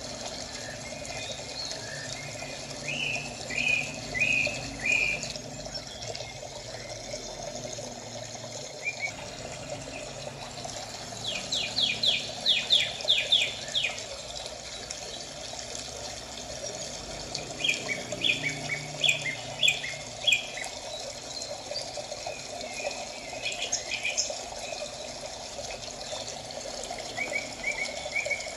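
Birds chirping in short quick runs of notes, several times over, over a steady background of running water.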